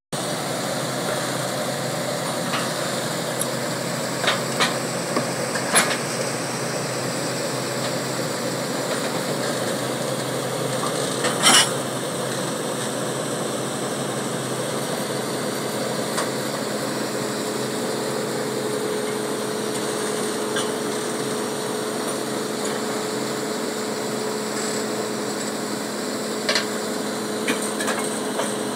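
New Holland crawler dozer's diesel engine running steadily as the machine climbs steel ramps onto a truck bed, with a few sharp metal clanks from the tracks on the ramps, the loudest about eleven seconds in.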